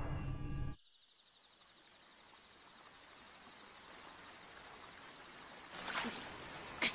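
Music cuts off abruptly under a second in, then a gently flowing stream fades in, faint and steady, with a couple of short, sharp noises near the end.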